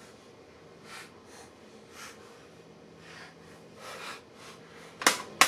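Hands working on a laptop's plastic case: faint scraping strokes about once a second, then two sharp plastic clicks near the end as the underside cover panel comes off.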